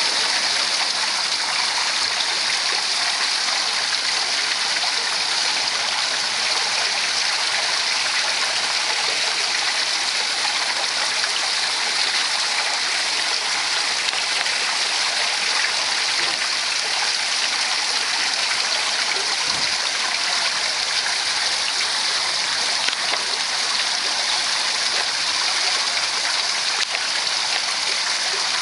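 Water pouring steadily down an artificial waterfall, an even, unbroken rushing and splashing.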